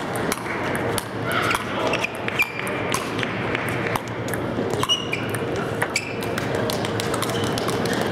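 Table tennis balls ticking off sandpaper paddles and tables: many sharp, irregular pings over the steady murmur of a crowded hall.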